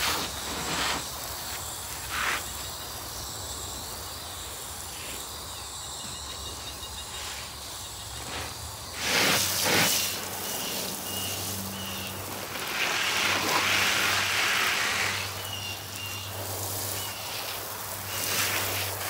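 Garden hose spray nozzle showering water onto loose soil in a raised bed: a steady hiss of spray, louder for a couple of seconds past the middle.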